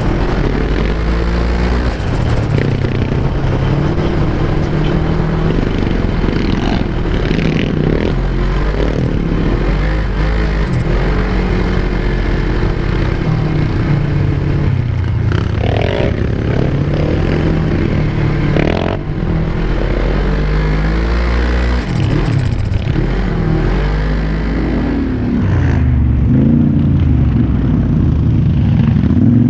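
Engine of an off-road bike riding over sand dunes, heard from on board, revving up and down with the throttle and a little louder near the end.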